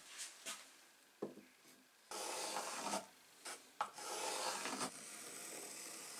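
Pencil lead scratching across an oak board in long strokes as it traces the outline of a wooden hammer handle. A couple of light wooden knocks come in the first second or so, as the handle is set on the board.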